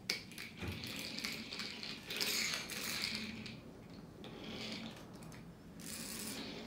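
Small plastic King Triton Happy Meal toy being handled and pushed about on a table: a sharp click at the start, then several bursts of plastic scraping and rattling as its base, meant to spin, is worked by hand. The spinning part is stuck and does not turn.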